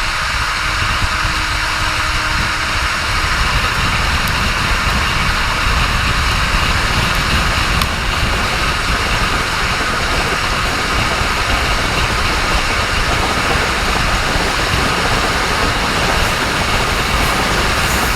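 A train running along the track, a steady rumble of wheels on rail with a rushing noise over it.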